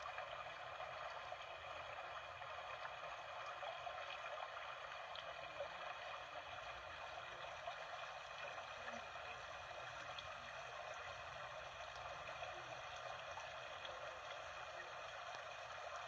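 Small forest stream flowing over rocks, a steady, fairly faint rush of running water.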